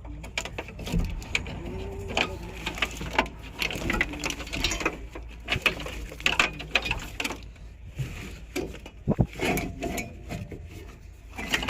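Irregular clicks, knocks and rustling of a truck wiring harness and its plastic couplers being pulled and handled, over a low steady hum.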